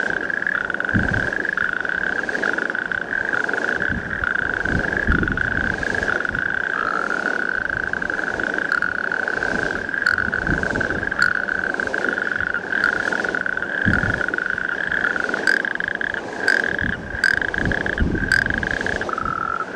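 Natterjack toads calling, their trills running together into a steady, unbroken churring rattle.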